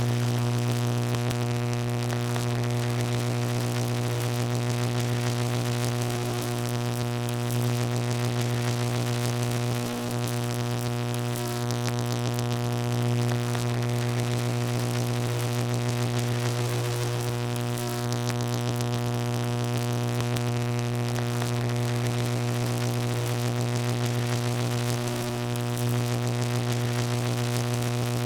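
Continuous electrical buzz: a steady low hum with a stack of higher overtones and a hiss on top, swelling slightly in level now and then.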